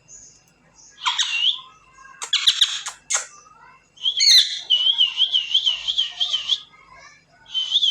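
African grey parrot calling: a few short whistles and a harsh squawk, then a warbling whistle that wavers up and down about three to four times a second for about two seconds, starting again near the end.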